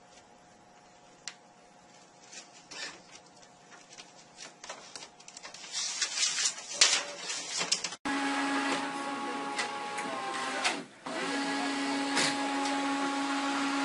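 Scattered clicks and rustling that grow louder, then a small motorised machine running with several steady whining tones, cutting out briefly once.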